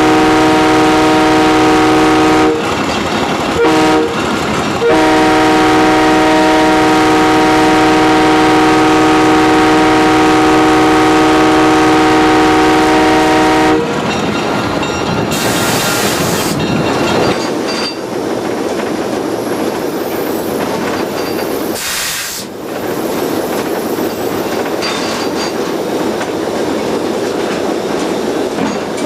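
Air horn of an MLW S-12 diesel switcher sounding a multi-note chord: a long blast, a short toot about four seconds in, then a long blast of about nine seconds, the pattern blown for a grade crossing. After that the train is heard running along the track, with two brief hisses.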